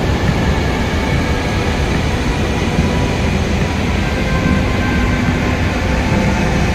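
Loud, steady rush of Dettifoss, a huge waterfall, with a deep rumble of heavy falling water and spray.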